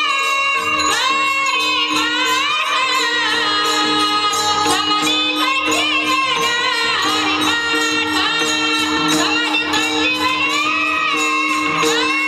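Warkari devotional singing: a solo voice sings a melodic line with gliding, ornamented pitch over a steady held drone. Jingling hand percussion keeps a regular beat.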